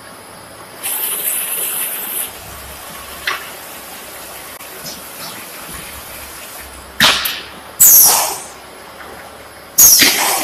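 Packing-line machinery giving off short bursts of air hiss over a low steady hum: a longer, softer hiss about a second in, then sharp loud bursts about seven, eight and ten seconds in.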